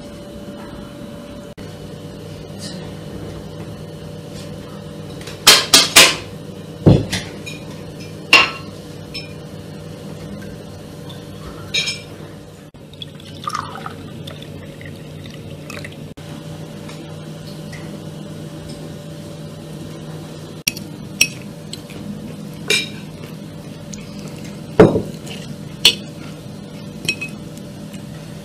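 Forks and knives clinking on china plates and glassware at a dinner table, with scattered sharp clinks that are loudest in a quick cluster about five to six seconds in and once near the end. About halfway through, a red fruit drink is poured from a glass jug into a cut-crystal glass.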